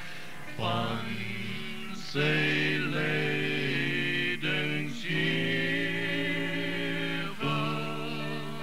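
A slow hymn sung by a group of voices, each note held for a second or more before moving to the next.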